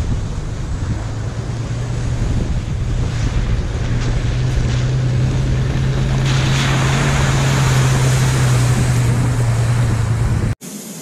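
Toyota LandCruiser HJ75's diesel engine drone growing louder as the ute drives up and past through shallow floodwater, with a rushing hiss of tyres splashing through the puddles as it passes about six seconds in, over wind on the microphone. The sound cuts off suddenly near the end.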